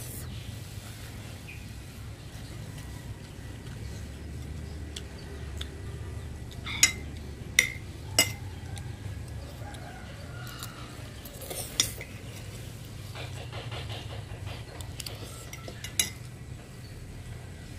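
Metal spoon clinking against an amber glass bowl as rice and fried egg are scooped up: three sharp clinks close together about seven seconds in, another near twelve seconds and one more at sixteen, over a steady low background hum.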